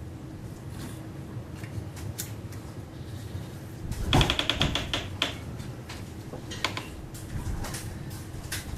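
Sharp mechanical clicks and rattles from handling the custom PCP air rifle, with a quick run of metallic clicks about four seconds in, over a steady low hum.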